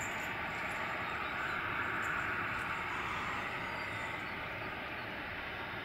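Boeing 737-800's CFM56-7B jet engines at taxi power: a steady rushing hum with a thin whine holding one pitch, swelling slightly about two seconds in.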